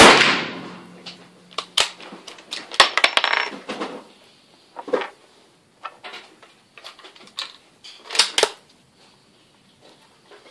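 A single .44 Magnum shot from a Ruger 77/44 bolt-action carbine right at the start, ringing off over about a second. It is followed by a series of sharp metallic clicks and clacks as the rifle is handled, with a busy patch about three seconds in and a double click near eight seconds.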